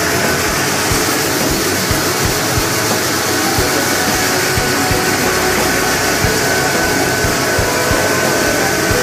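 Mini rice mill machinery running: a steady, loud mechanical rush with a few steady whining tones over it, and frequent irregular low thumps.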